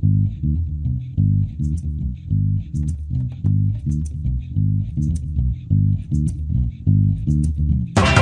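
Instrumental opening of a rock song: a bass guitar plays a repeating riff of low, plucked notes, with faint regular ticks above it. The full band comes in loudly right at the end.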